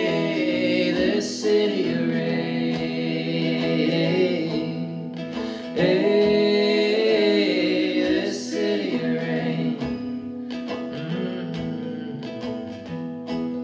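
Live acoustic folk band playing between verses: strummed acoustic guitar and banjo with fiddle, and singing voices without clear words.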